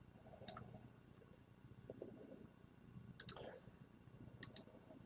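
Faint, scattered clicks in four small groups over several seconds, with near silence between them.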